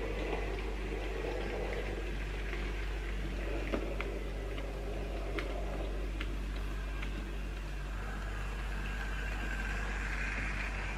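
Model Sentinel diesel shunter running on the layout's track hauling wagons: a steady electric motor hum with scattered light clicks from the wheels on the rails.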